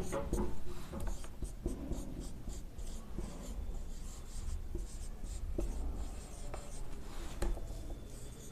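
Marker pen writing on a whiteboard: a run of short scratching, squeaking strokes as words are written.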